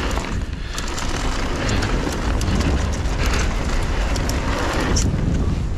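Mountain bike ridden fast down a dirt jump trail: wind rushing over the action camera's microphone with a heavy low rumble, knobby tyres rolling over packed dirt and loose gravel, and frequent small clicks and rattles from the bike. The noise dips briefly about half a second in.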